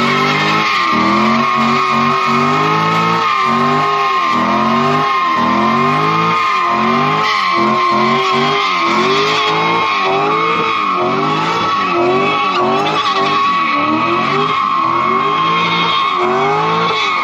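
Corvette V8 doing a burnout: the engine revs up and down in repeated surges about once a second while the spinning rear tyres give a steady, high-pitched squeal.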